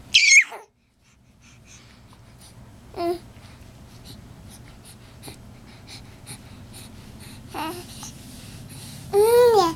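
A pet making short squeaky vocal noises: a loud high squeal that falls steeply in pitch at the start, two short calls in the middle, and a louder whine that rises and falls in pitch near the end.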